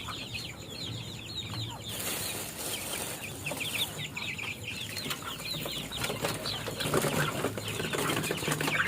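A cage of young chickens peeping, many short falling chirps overlapping continuously, over a low steady hum.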